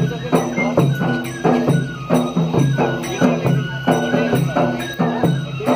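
Traditional folk music for the Bhaderwahi kud dance, with a quick, steady percussive beat of about three strokes a second under a pitched melody.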